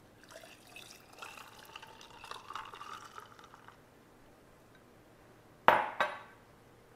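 Coffee poured from a glass measuring cup into a drinking glass, pouring and splashing for about three and a half seconds. Near the end come two sharp knocks in quick succession as the glass measuring cup is set down on the counter.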